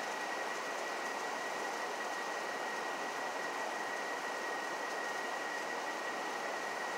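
A steady, even hiss with a constant high-pitched whine running through it. No thunder is heard.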